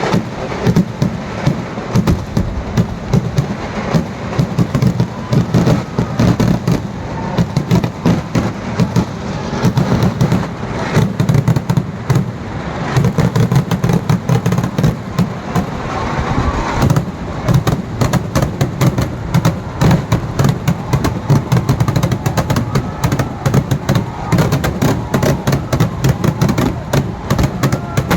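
Firecracker barrage: rapid, overlapping bangs, several a second without a break, over a continuous low rumble.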